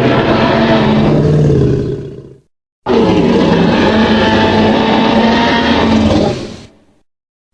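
Two long, loud Tyrannosaurus rex roar sound effects, each fading out at its end. The first dies away about two and a half seconds in, and the second starts half a second later and fades out near seven seconds.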